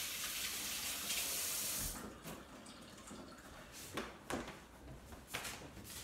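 Kitchen tap running with water splashing over fingers being rinsed, shut off about two seconds in. A few light knocks follow.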